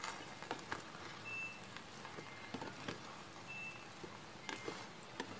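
Rice paddle stirring coconut-milk rice in an electric rice cooker's inner pot: faint scattered taps and scrapes. A short, high electronic beep repeats about every two seconds throughout.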